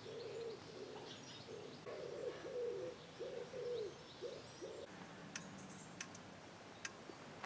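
A pigeon cooing, a repeated phrase of low soft notes that stops a little over halfway through, with small birds chirping faintly over it. A few sharp clicks follow near the end.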